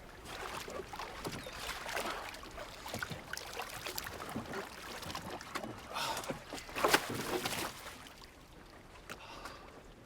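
Water splashing and lapping around a small fishing boat being set out on the water, with knocks from the boat. There is a sharp knock at the start, and the loudest splash comes about seven seconds in.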